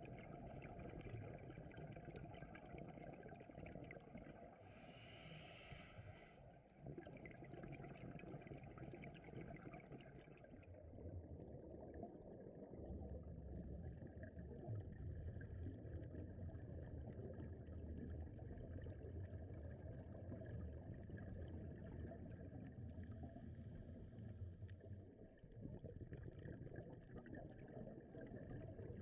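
Faint, muffled water noise with a low hum that grows stronger about ten seconds in and fades near the end, broken by two short hissing bursts about five and twenty-three seconds in.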